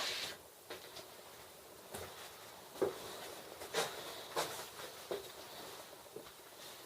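Scattered footsteps and light knocks of someone moving about, half a dozen irregular taps over a low hiss.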